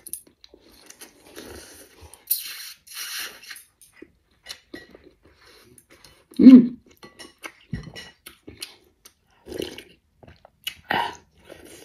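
Slurping noodles and broth from a bowl of soup, with chewing and small clicks of chopsticks and spoon against the bowl. A short pitched sound from the eater comes about halfway through, the loudest moment.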